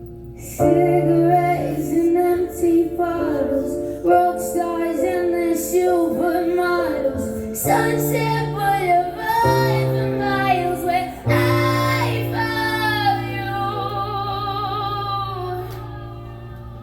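Live female vocal with solo piano accompaniment: a ballad sung over sustained piano chords, the voice holding a long final note as the chords ring out and fade near the end.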